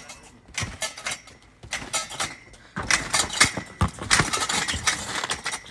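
A person bouncing on a backyard trampoline: repeated thumps of the mat with the metal springs jangling and squeaking. It gets busier and louder from about three seconds in.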